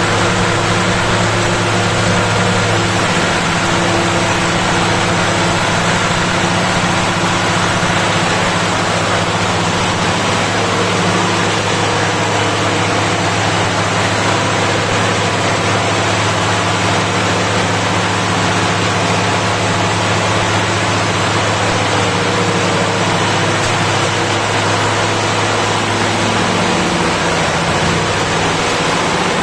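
Caterpillar auxiliary diesel generator running steadily at speed with a loud, even engine drone and a constant low hum.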